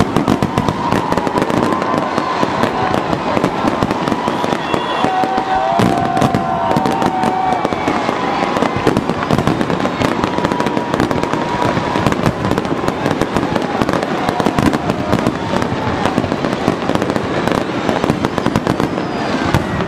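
Fireworks and firecrackers going off in a dense, continuous crackling barrage, with a few drawn-out tones sounding over it.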